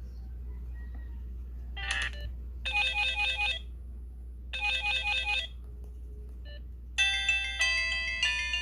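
Samsung SGH-T629 mobile phone playing ringtones through its small speaker: a brief chirp, then a burst of rapid repeated electronic tones that sounds twice about two seconds apart, and about seven seconds in a different melodic ringtone starts. A low steady hum lies under it all.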